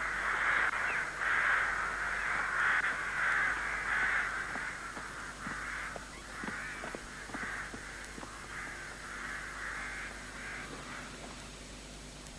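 Crows cawing: a run of harsh calls about two a second, thinning and fading away near the end.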